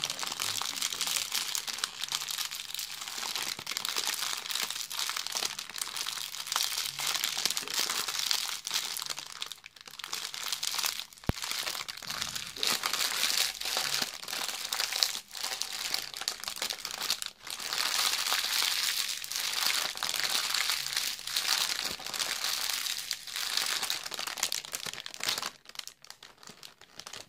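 Clear plastic bag being crumpled and crinkled in the hands close to a microphone: a dense, continuous crackle with a few brief pauses, thinning out near the end.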